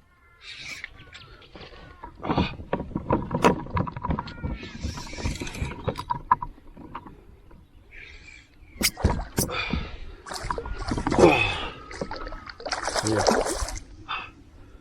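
A hooked Australian bass splashing at the surface beside a kayak, with water sloshing and sharp knocks and rattles on the hull, in irregular bursts as the fish is fought and brought in.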